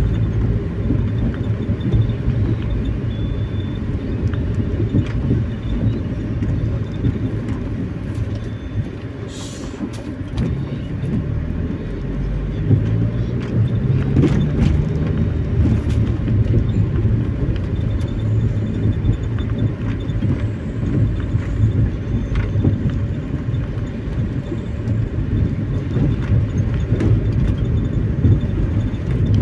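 Steady low road and engine rumble heard from inside a moving vehicle's cabin, with the engine pitch shifting for a few seconds around the middle and a couple of brief sharp clicks.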